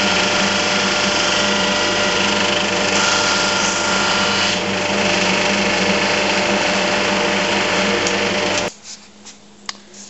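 Jet 16-32 Plus drum sander running steadily with a constant motor hum. The sound cuts off abruptly near the end, leaving a few faint clicks.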